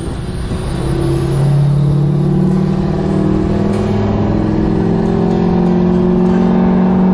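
Truck engine pulling a heavy load and accelerating, its pitch rising slowly and steadily, with road and wind noise.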